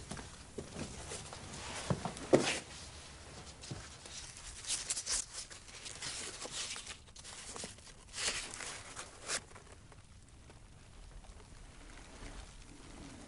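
A stiff paper letter crackling and rustling as it is handled and unfolded, in several short spells, with a sharp tap about two seconds in.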